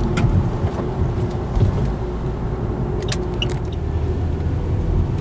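A car driving, heard from inside the cabin: a steady low rumble of engine and tyres on the road. There is a light tick just after the start and a short cluster of ticks about three seconds in.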